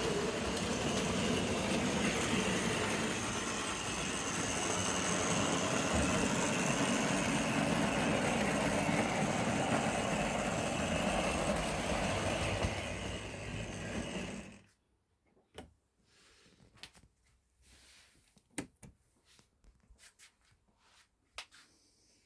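Tri-ang model train running on the layout: the locomotive's electric motor whirring and the wheels of the loco and wagons rattling steadily over the track. About fourteen seconds in the sound cuts off suddenly as the train stops, followed by a few faint clicks.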